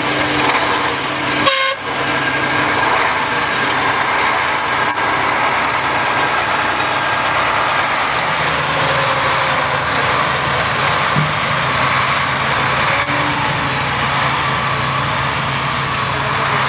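Ural six-wheeled military truck's engine running steadily.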